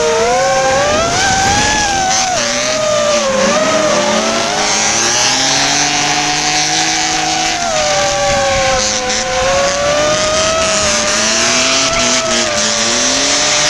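An FPV racing drone's motors whine throughout, their pitch wandering up and down with the throttle. Beneath it, drift cars' engines rev and their tyres squeal in long stretches as two cars slide through the corners in tandem.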